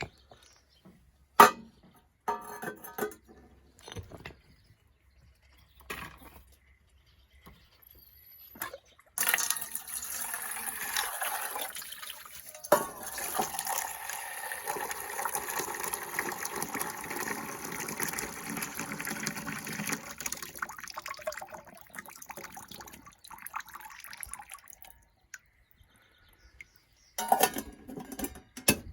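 Water poured steadily into a pot or kettle for about fifteen seconds, after a few scattered knocks and clicks of things being handled.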